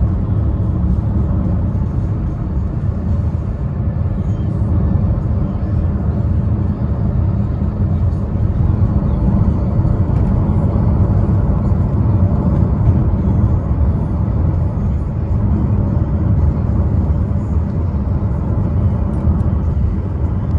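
Steady road and drivetrain noise of a 2015 Chevrolet Cruze driving on a test drive, heard from inside the car as an even low rumble.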